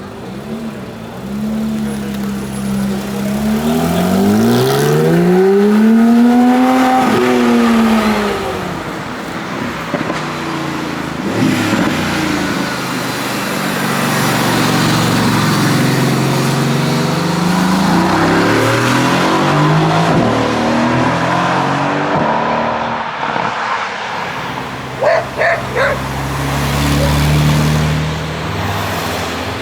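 Sports car engines revving and accelerating. The engine note climbs and falls back in pitch about five to eight seconds in, then keeps rising and dropping through further revs and pass-bys.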